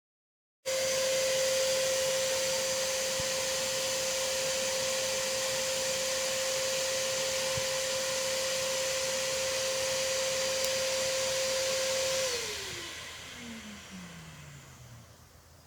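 Electric blower motor of an artificial snow machine, running with a steady whine over a rushing hiss. It starts suddenly under a second in, then is switched off about twelve seconds in, its pitch falling as it winds down.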